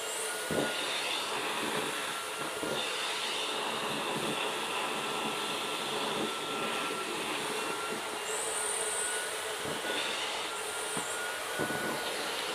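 Vacuum cleaner running steadily at a quarter of its suction, its nozzle drawn through a long-haired cat's fur; the whine shifts a little now and then as the nozzle moves over the fur.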